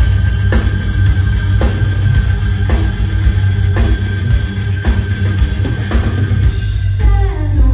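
Live rock band playing loud: drum kit, bass guitar and electric guitar, with heavy drum hits about once a second under a held high note. Near the end the band drops back and a singer's voice comes in.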